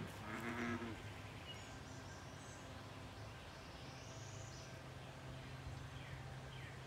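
A single pitched animal call, about half a second long, just after the start. Then faint high bird chirps and a falling whistle near the end, over a low steady hum.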